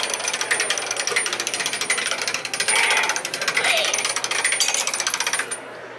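Hand-cranked pressed-penny machine being turned. Its gears and ratchet clatter in a fast, steady run of clicks as the penny is rolled flat and embossed, stopping shortly before the end.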